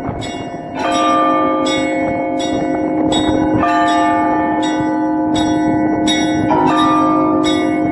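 Russian Orthodox church bells ringing (zvon): small bells struck in a quick, even rhythm, a stroke a little under twice a second, over the sustained ring of larger bells, with a fuller stroke about every three seconds.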